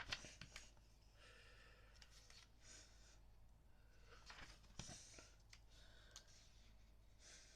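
Faint rustling as a wrapped book and its packaging are handled, in a few short, soft swishes.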